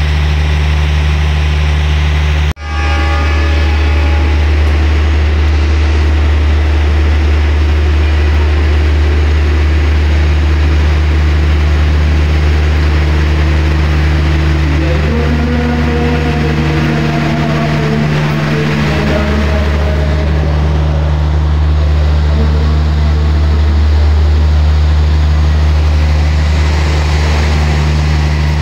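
Steady low diesel drone from a KAI Taksaka passenger train at the platform. The sound breaks off for an instant about two and a half seconds in. About halfway through, a higher engine note rises and then holds steady over the drone.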